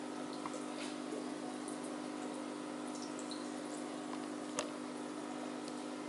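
Aquarium filter and pump running: a steady low hum under water trickling and dripping into the tank, with small scattered drips and one sharper tick a little past halfway.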